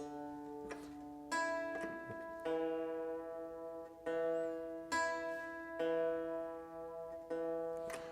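Hammered dulcimer strings plucked one at a time, about eight plucks, alternating the lowest bass-bridge string, D, with the D an octave above, each note ringing on and fading. This is tuning by ear: the low D, a little flat, is being matched to its octave.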